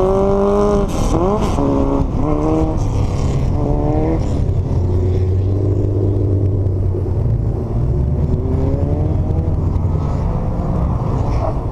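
Car engine revving in a few short blips, rising and falling in pitch, over the first four seconds or so, then settling into a steady low idle.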